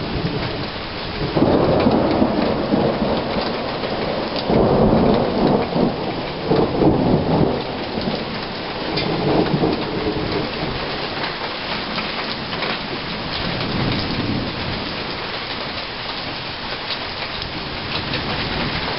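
Thunder rumbling in several rolling waves through the first half, over steady rain with pattering drops.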